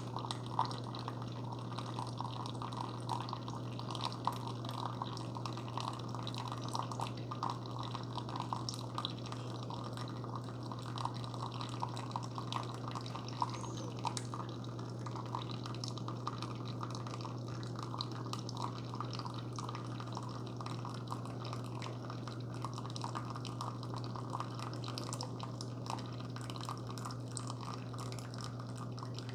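Keurig K-Supreme Plus Smart single-serve coffee maker brewing a K-Cup on its Strong strength setting: a steady low pump hum under coffee streaming and dripping into the cup.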